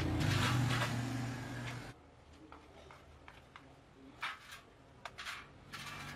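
A steady motor hum that cuts off abruptly about two seconds in, followed by a few faint knocks and clicks.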